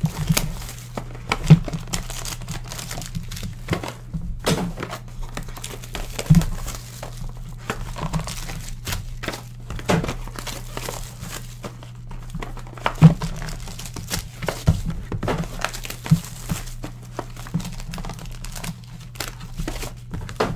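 Trading-card hobby box being opened and its foil-wrapped packs handled: crinkling foil with a dozen or so sharp knocks as the box and packs are set down on the desk. A steady low hum runs underneath.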